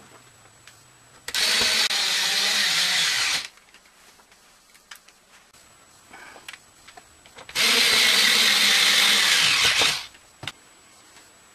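Cordless electric screwdriver running in two bursts of about two seconds each while driving screws, the second winding down as it stops.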